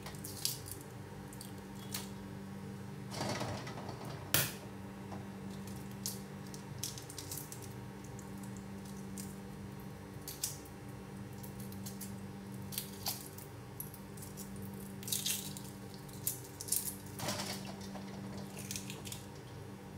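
Hard-boiled eggs being peeled over a stainless steel bowl of water: scattered small clicks and crackles of shell breaking off, with a few splashes of water, about 3 to 4 seconds in and again near the end. A steady low hum runs underneath.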